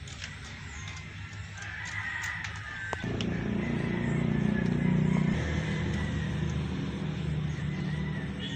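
A low, steady engine drone from a motor that is not in view comes in suddenly about three seconds in, swells, then settles to a steady hum. Light clicks sound over it as small metal parts are handled.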